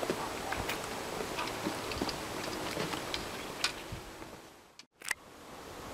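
Footsteps on a rocky, gravelly trail: scattered clicks and crunches of stones underfoot, fading out near the end.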